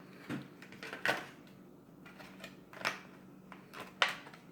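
Pokémon trading cards being handled and laid down on a table: about four sharp taps and snaps with light rustling between.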